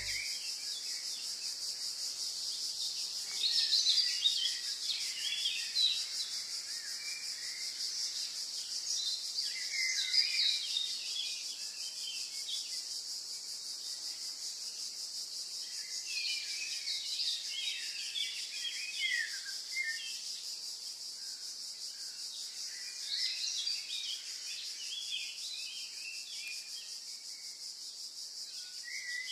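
Birds chirping and twittering in scattered bursts over a steady high-pitched hiss.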